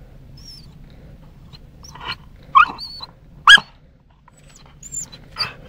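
A terrier gives a few short, sharp barks, two of them loud about two and a half and three and a half seconds in, with softer ones before and after. It is barking at a rabbit's burrow while hunting.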